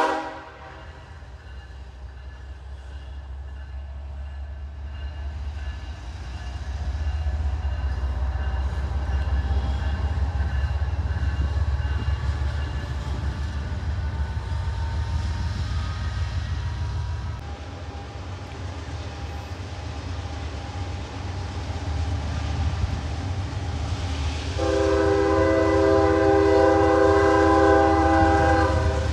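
Diesel locomotive engines rumbling low, swelling then easing off, and about 25 seconds in a locomotive air horn blows a long chord of several tones, held to the end.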